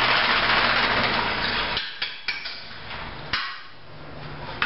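A long lamp-drilling bit scraping inside a cedar lamp blank turning on a wood lathe: a dense scraping hiss for about the first two seconds that then stops. A few metal clinks follow over the lathe motor's steady hum. The bit is being poked in to clear packed cedar sawdust from the hole.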